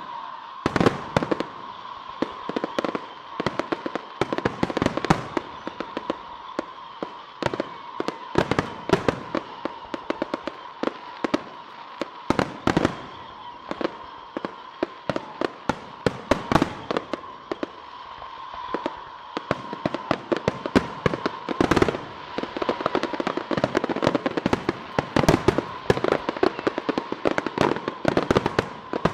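Aerial firework shells bursting in quick succession, sharp bangs coming thick and fast and densest in the last third, over a steady high tone.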